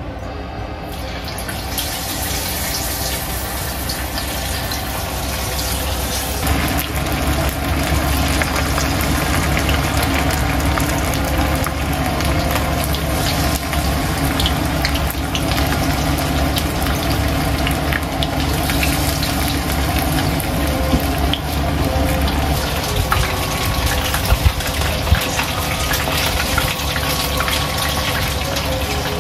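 Water running steadily from a tap. It grows stronger about six seconds in, and a few sharp clicks come near the end.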